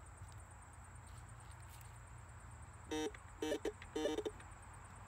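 Metal detector beeping: about three seconds in it gives five or so short electronic tones in quick succession, signalling metal in the ground beneath the search coil.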